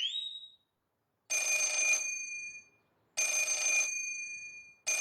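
Cartoon telephone bell ringing: three short rings, each trailing off, about two seconds apart. A brief rising whistle-like glide sounds at the very start.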